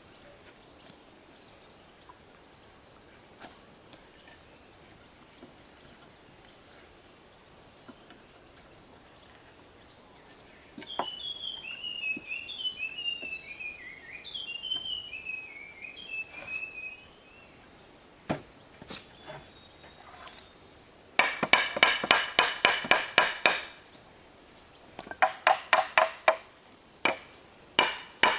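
A hammer driving nails into wood in quick runs of ringing blows, about five a second, coming in three bursts in the last third. Underneath, insects drone steadily and high-pitched, and around the middle a bird gives a run of falling chirps.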